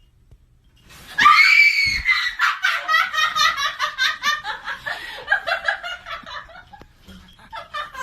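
A sudden high-pitched scream about a second in, breaking into a long burst of hearty laughter that pulses rapidly and fades over several seconds.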